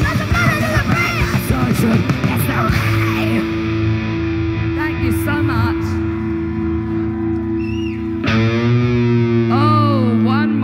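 Live rock band on electric guitars through amplifiers: busy playing for the first few seconds, then held chords left ringing, a new chord struck about eight seconds in, and bent notes near the end.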